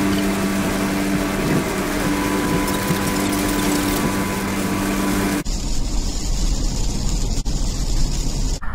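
Car driving at highway speed, heard from inside the cabin: a steady drone of road and engine noise with a low hum. About five seconds in it switches abruptly to a deeper rumble with a hiss.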